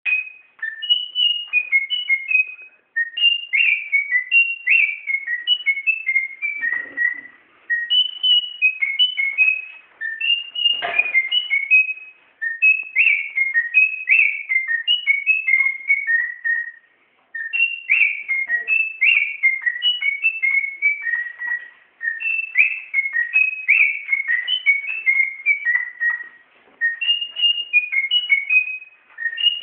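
A parrot whistling a melody like a person, clear notes stepping up and down in pitch. The same short tune is repeated phrase after phrase, with brief pauses between phrases.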